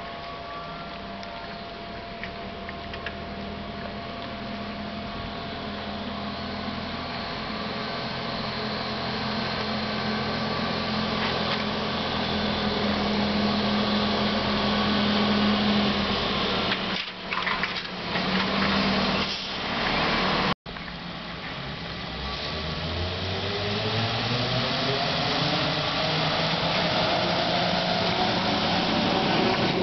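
ZiU-9 trolleybus's electric traction equipment humming steadily and growing louder as it draws near. After a short break the traction motor gives a whine that rises in pitch as the trolleybus accelerates.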